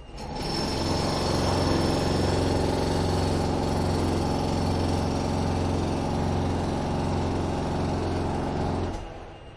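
Heavy construction machinery running: a steady, deep engine drone with a fast rattle. It starts suddenly and fades out near the end.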